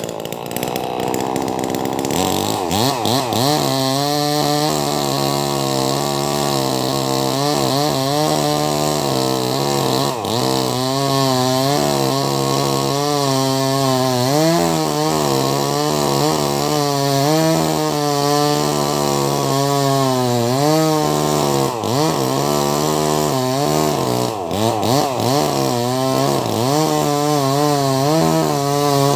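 Wagner 580 two-stroke chainsaw with a 24-inch bar, running hard as it cuts lengthwise through a large log. The engine note wavers throughout and sags and recovers a few times as the chain loads up in the wood.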